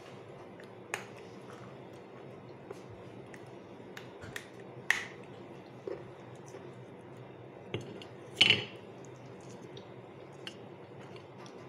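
Pieces of roasted clay and slate stone clicking against a ribbed glass dish as they are picked through. It is a scattered run of sharp clicks, the loudest a quick cluster about two-thirds of the way through.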